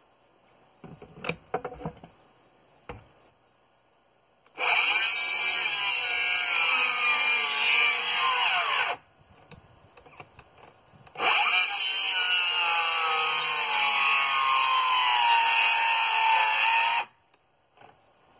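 Power saw cutting framing lumber: two cuts, each about five seconds long, with the saw's pitch wavering as it runs. A few knocks come before the first cut.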